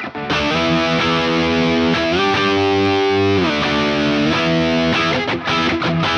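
Distorted electric guitar lead played through the Tonocracy amp-modeling plugin's dual-amp setup with reverb on: long sustained notes with several string bends rising and falling in pitch.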